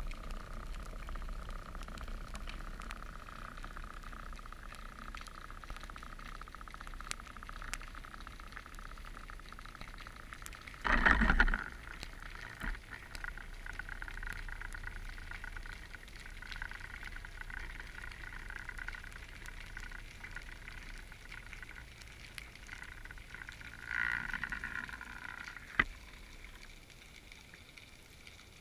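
Underwater sound picked up by a camera in its waterproof housing on a fishing rig: a steady faint hum with scattered clicks and crackles. About eleven seconds in comes a loud burst of noise lasting about a second, and near the end a shorter rise with a falling tone and a sharp click.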